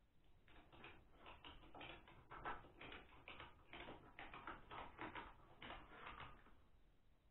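Ratchet tie-down strap being cranked tight, a quick run of light clicks, about four a second, that stops near the end.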